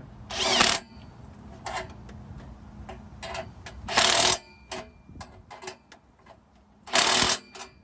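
A tool working on a rusted exhaust clamp: scattered clicks and ticks, broken by three short, loud, harsh bursts of noise about half a second, four seconds and seven seconds in.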